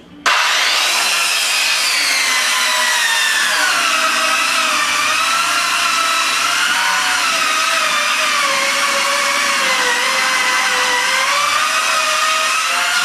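Corded circular saw starting up and cutting lengthways through particle-board subfloor. Its high motor whine sags and recovers in pitch as the blade is loaded in the board.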